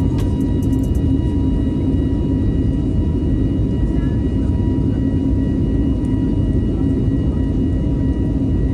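Steady low drone of a jet airliner heard from inside the cabin, with faint steady tones above it.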